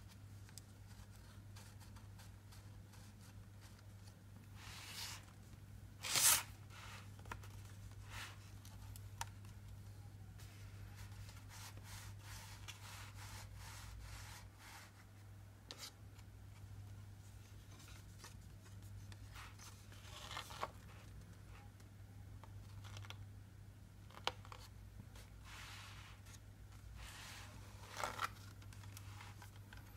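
Paper and card of a pop-up book rustling and scraping as its pages are turned and its fold-up scenes and pull-tab figures are moved by hand, in scattered short strokes, the loudest about six seconds in. A faint steady low hum sits underneath.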